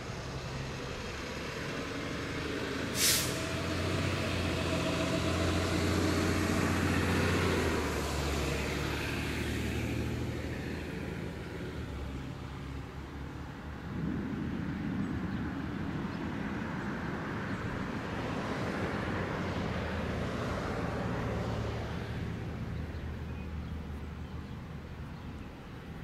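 Road traffic with a heavy truck among it, a low rumble that swells and fades, and a short sharp air-brake hiss about three seconds in.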